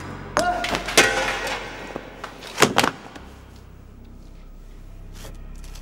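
Several sharp thumps and knocks in quick succession during the first three seconds, the loudest about a second in and again near the three-second mark. They give way to a low steady drone of background music.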